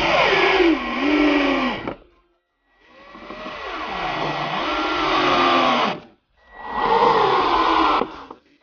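Cordless drill running in three long bursts with short pauses between, its motor pitch sagging and wavering as it bites into the timber under load.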